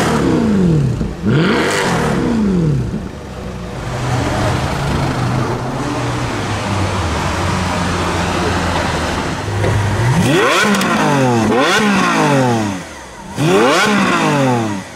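A high-performance car engine revved in sharp throttle blips, its pitch shooting up and falling back: twice at the start and three more times in the last few seconds, with a low, steady idle between.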